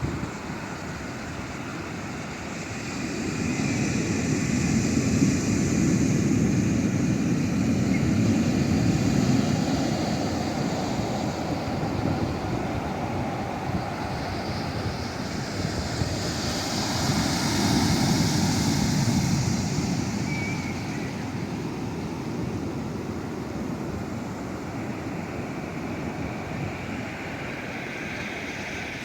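Sea waves breaking and washing ashore: a continuous rush of surf that swells louder twice, first about four seconds in and again around eighteen seconds, then eases off.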